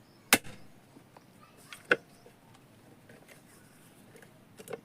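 Sharp knocks and clicks of metal parts as a ceiling fan's top and bottom covers are fitted together: one loud knock about a third of a second in, another near two seconds, and a few faint clicks near the end.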